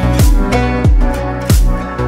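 Background electronic music with a low kick drum that drops in pitch, striking about every two-thirds of a second under sustained synth tones.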